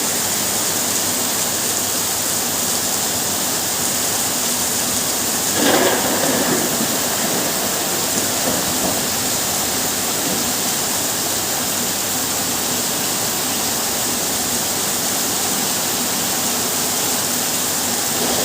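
Heavy rain falling steadily, an even hiss, with a brief louder surge about six seconds in.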